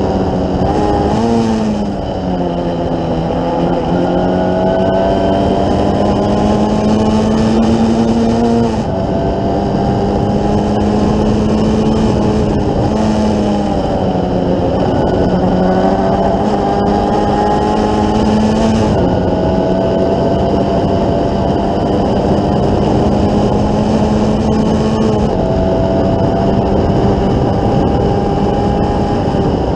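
Onboard sound of a Formula Ford 1600 race car's Ford Kent 1.6-litre four-cylinder engine under hard acceleration. Its pitch climbs steadily in long pulls and drops sharply several times, over a constant rush of wind and road noise.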